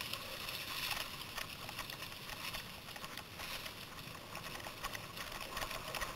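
Mountain bikes rolling along a forest trail strewn with dry leaves: a steady hiss of tyres with scattered small clicks and rattles.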